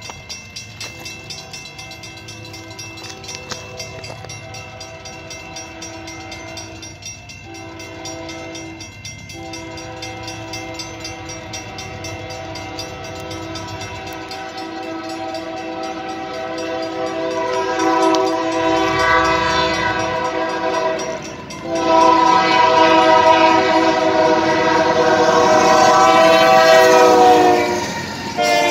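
Union Pacific freight locomotive's multi-note air horn sounding long blasts as the train approaches, growing steadily louder, with short breaks about a quarter and a third of the way in and another about three-quarters through. Near the end the horn's pitch drops and it fades as the locomotive passes, leaving the rumble of the train.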